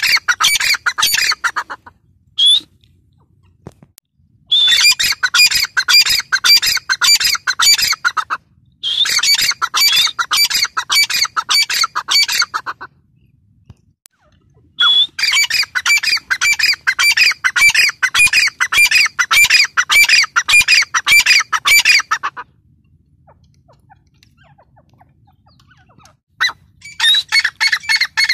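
Female grey francolin (teetar) calling in loud bouts of rapid, harsh repeated notes, several a second, each bout opening with one clearer note. The bouts last a few seconds each with short pauses between them, and a longer pause near the end before calling resumes.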